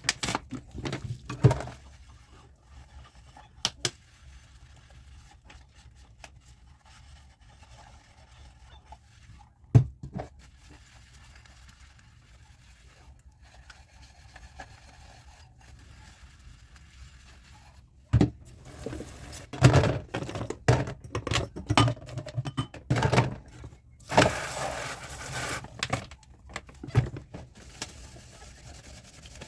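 Dishes and cutlery clinking and knocking together in a sink, with a few scattered knocks in the first ten seconds and then a busy run of clatter in the last third. Near the end there is about two seconds of steady hissing.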